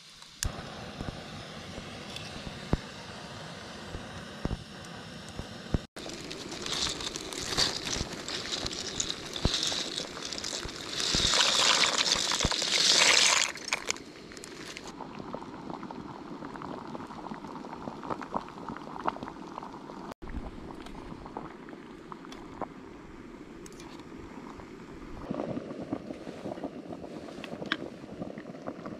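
Camp cooking at a backpacking canister stove: a spoon clinking and scraping in a metal pot, then a plastic zip-top bag crinkling as its contents are poured into the pot, loudest for a couple of seconds about eleven seconds in. Later, light clicks and taps of a plastic food container being handled.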